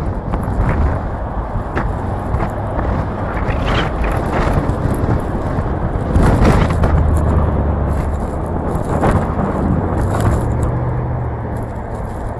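Gusty wind rushing over the microphone, over the steady low hum and road noise of a car driving.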